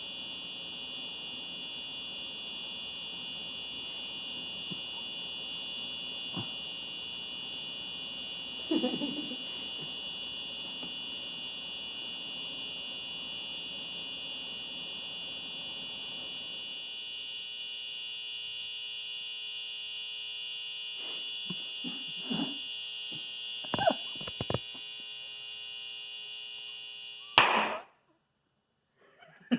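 Loudspeaker wired straight to mains power, buzzing steadily with a harsh hum and crackling now and then. Near the end it gives a loud pop and cuts off suddenly as the overdriven speaker fails.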